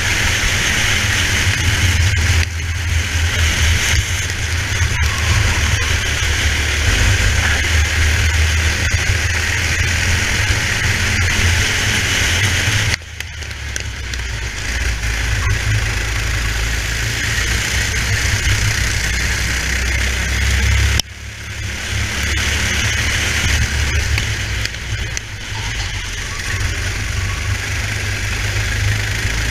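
Racing kart engine running hard under load, heard from the driver's seat over a steady hiss. About 13 s in and again about 21 s in the sound drops suddenly and then builds back up over a few seconds, as the throttle is lifted for corners and reopened.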